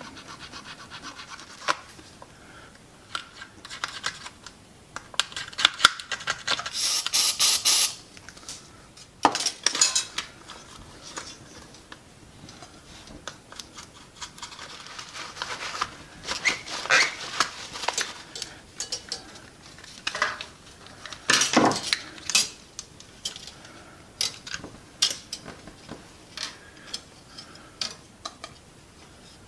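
A small brush scrubbing and scraping the corroded battery contacts inside a plastic toy car's battery compartment, with vinegar used to clean off the alkaline battery corrosion. Irregular rubbing and scratching with clinks and clatter of tools and the plastic car being handled on the bench, and a louder rasping stretch lasting about a second around seven seconds in.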